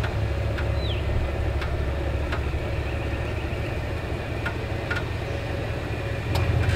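Toyota LandCruiser 100 series engine running at a low idle as the four-wheel drive crawls slowly over deep ruts, with a few light clicks scattered through. The engine grows a little louder near the end.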